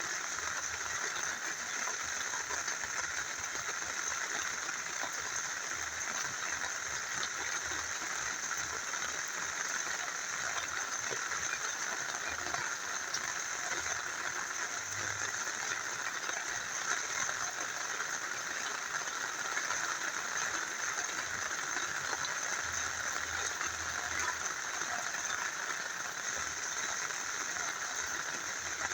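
Rain falling steadily together with a small river flowing, a continuous even hiss of water with fine scattered drop ticks.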